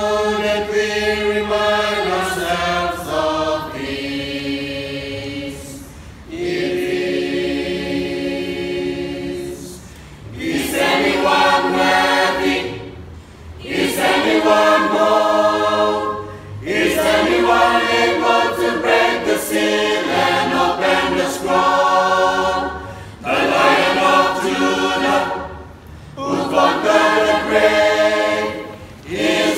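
Mixed choir of men's and women's voices singing a hymn a cappella in harmony, in phrases with short breaks between them.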